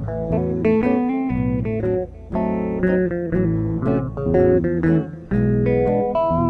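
Guitar music without singing: an instrumental break of plucked guitar notes in a quick melody over a bass line.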